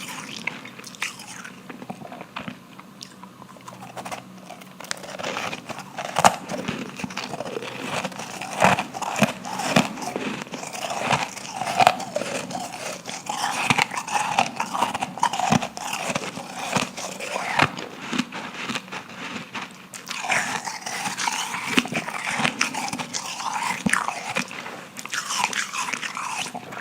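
Powdery ice being bitten and chewed close to the microphone: repeated crisp crunches and crackles as the ice breaks between the teeth.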